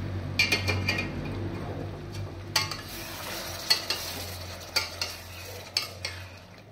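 Long steel spatula stirring small potatoes in masala in a stainless-steel pot, scraping against the pot about once a second. The spices and ginger-garlic paste fry with a low sizzle underneath.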